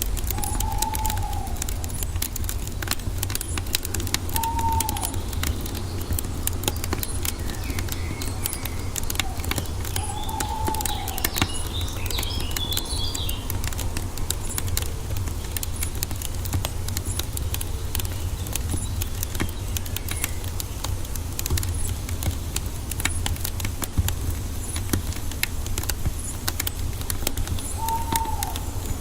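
Wood fire crackling and popping steadily over a low rumble. A bird gives a short arching call four times, and a quick high twitter comes about twelve seconds in.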